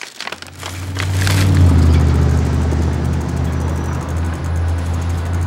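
A motor vehicle's engine running loud with a deep rumble, coming in abruptly at the start and holding steady.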